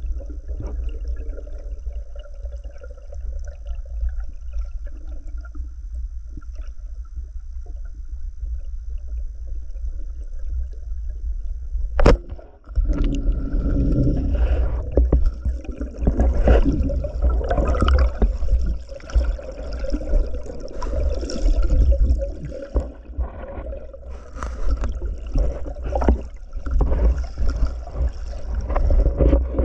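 Muffled underwater noise as a diver moves through the water: a steady low rumble at first, a sharp click about twelve seconds in, then louder churning water with many small knocks and rustles.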